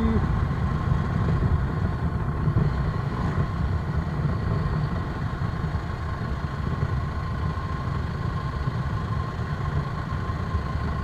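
Motorcycle running steadily while being ridden: a constant low rumble with a faint steady whine above it.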